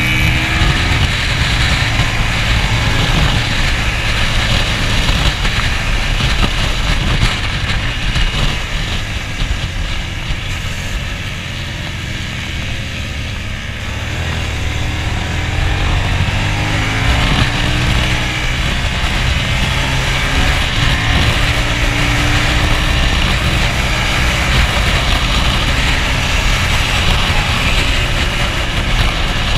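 Hyosung race motorcycle's engine running hard at track speed, heard from the rider's chest with heavy wind rush over the microphone. It eases off for a few seconds about halfway through, then pulls strongly again.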